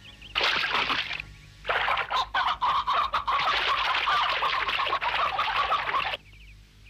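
Cartoon sound effect of a hen squawking frantically, with flapping: a short burst about half a second in, then a long agitated stretch that cuts off suddenly near the end.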